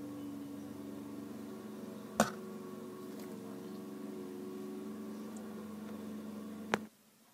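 A steady low hum of several held pitches, with a sharp click about two seconds in and another near the end, after which the hum cuts off suddenly.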